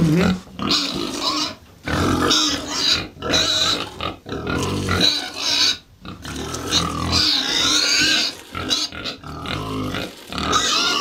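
Farm animals grunting and squealing in repeated calls of about a second each, with short gaps between them.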